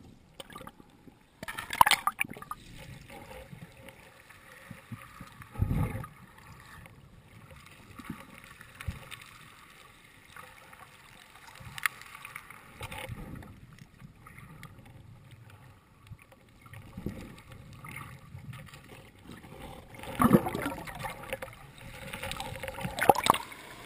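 Seawater sloshing and gurgling over a camera in its waterproof housing as it dips under the surface and comes back up, muffled underwater, with a splash about two seconds in and a dull thump near six seconds. Louder churning splashes come near the end as the surface water breaks over it.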